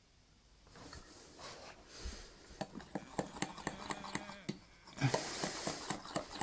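Crêpe batter being beaten in a mixing bowl by hand: quick, rhythmic clicking and scraping strokes of the utensil against the bowl, several a second, with a louder scraping rush about five seconds in.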